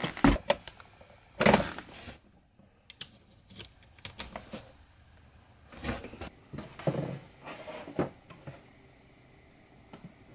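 Scattered knocks, clicks and rustles of a laptop charger cable being handled and its MagSafe connector plugged into a MacBook, the loudest knock about a second and a half in.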